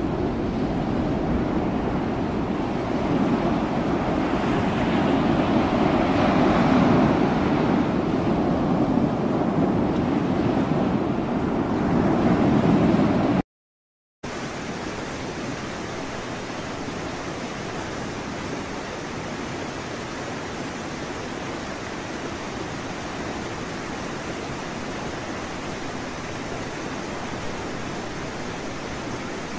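Loud rushing of wind and open sea on the microphone, rumbling and uneven. It cuts off abruptly about halfway through. After a brief silence a quieter, steady, even hiss carries on to the end.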